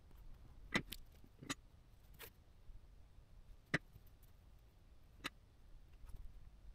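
Small sharp clicks and taps, about six at irregular intervals, from tweezers and a soldering iron tip touching a bare circuit board as tiny surface-mount passives are placed and soldered. A faint low hum runs underneath.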